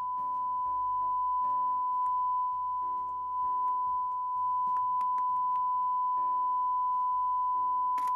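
A steady 1 kHz sine test tone plays through a Sony TA-F333ESX amplifier while its volume and balance knobs are turned. Scattered crackles and scratches break into the tone: the scratchy noise (gari) of a dirty, worn volume potentiometer. Background music runs underneath.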